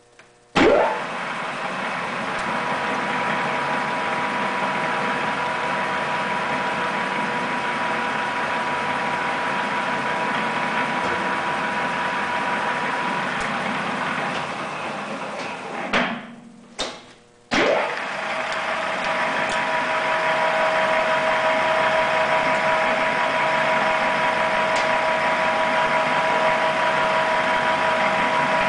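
Acra-Turn engine lathe's 5 HP three-phase motor starting and the geared headstock spinning the 3-jaw chuck up to speed, then running steadily with a whine. About halfway through it cuts out, then starts again with a click and spins back up, running on at a different pitch.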